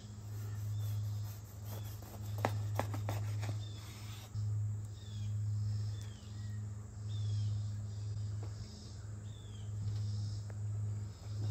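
A knife cuts through the crisp toasted tortilla shell of a breakfast crunchwrap, with a few sharp crunches about two and a half to three and a half seconds in. Underneath runs a low hum that swells and fades about every second and a half, along with short falling chirps about once a second.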